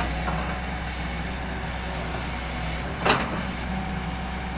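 SANY SY220C-9 excavator's diesel engine running steadily, with one sharp metallic clank about three seconds in.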